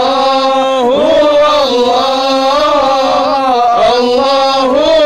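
One man singing an Arabic Sufi devotional chant, drawing out long sung vowels whose pitch winds up and down.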